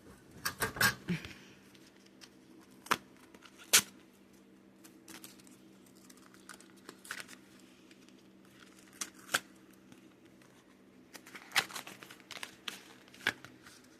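Foil wrapper of a Pokémon trading card booster pack being torn open and crinkled: sharp crackles in scattered bunches, the busiest near the start and near the end.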